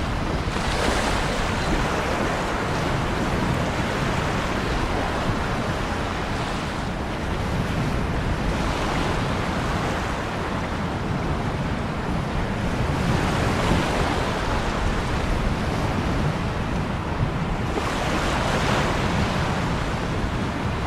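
Ocean surf: waves breaking and washing in a continuous rush, with stronger surges every few seconds.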